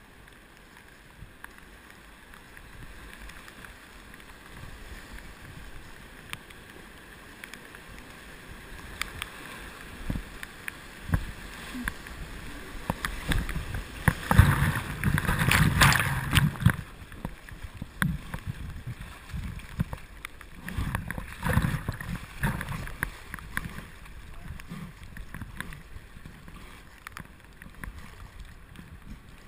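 Whitewater rapids rushing and splashing around a paddled open canoe, with sharp splashes from paddle strokes and waves. About halfway through there is a loud surge of crashing water as the boat runs a steep drop.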